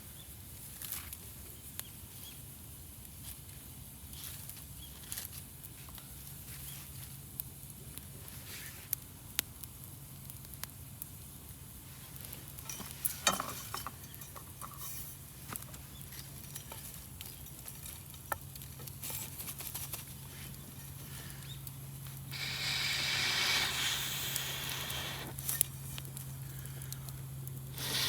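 Wood campfire crackling, with scattered sharp pops and snaps over a low hiss. About three-quarters of the way through, a louder hissing spell rises for about three seconds and fades back.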